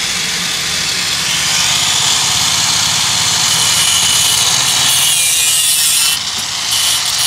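Angle grinder with a thin abrasive cut-off disc cutting through a motorcycle's steel exhaust pipe, a continuous high grinding hiss as the disc bites into the metal. It eases off briefly about six seconds in and then cuts on. This is the stock silencer being cut off.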